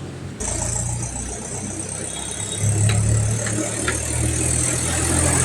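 Steady low engine-like hum of a mini model tractor running. A high hiss joins about half a second in, and the hum grows louder near the three-second mark.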